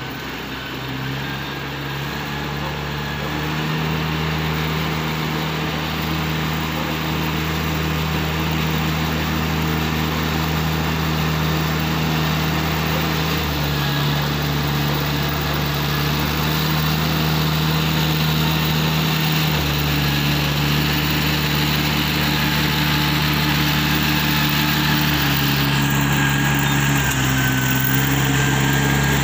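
Ride-on rice transplanter's small engine running steadily, growing louder as the machine comes closer; its note steps up and down a few times as the engine speed changes.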